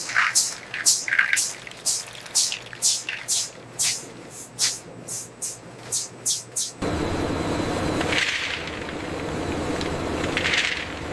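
A quick irregular run of short, sharp, high-pitched crackles or hiss bursts, about two a second, that stops suddenly about seven seconds in. Steady production-line machinery noise with a low hum follows.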